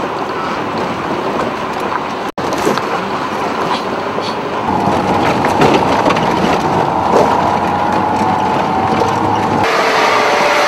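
Off-road vehicle driving over a rough dirt track: steady engine and road noise with rattling, broken by a brief gap about two seconds in. From about halfway, a wavering whine rides on top.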